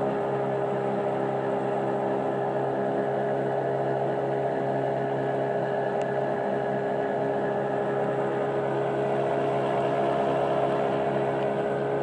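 Small boat's motor running at a constant speed, a steady hum.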